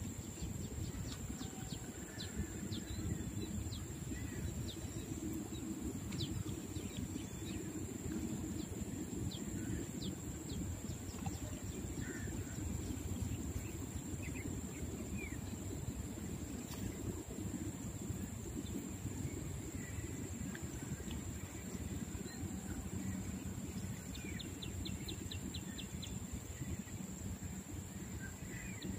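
Outdoor riverbank ambience: a steady low rumble with scattered faint bird chirps and a constant thin high whine. A short, fast run of ticks comes near the end.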